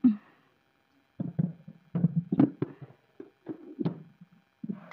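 A run of irregular dull knocks and taps from kitchenware being handled, starting about a second in: a plastic insulated hot pot used for keeping roti and steel utensils on a steel tray.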